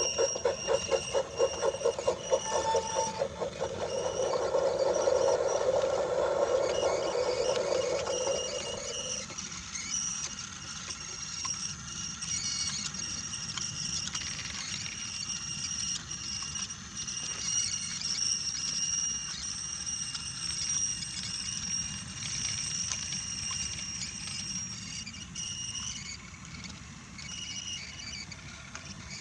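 Battery-powered Brio toy train on wooden track: a fast rhythmic chugging for the first few seconds, then a louder steady rushing sound that stops about nine seconds in, leaving a quieter steady whine.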